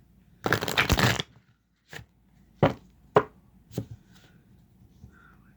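A tarot deck being shuffled in a short dense burst, followed by four sharp taps about half a second apart.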